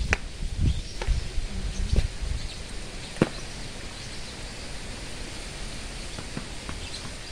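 A small ball bouncing on concrete: several sharp taps, the loudest about three seconds in, over a steady outdoor hiss.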